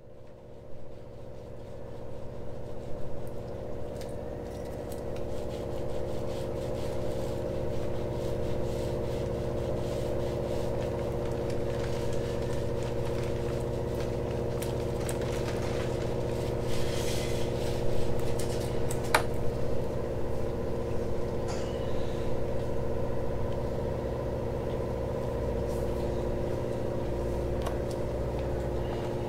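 A steady machine hum, a motor running at a constant speed. Over it come a few light clicks and scrapes from hand-applying fibreglass resin with a brush, a roller and a plastic mixing cup.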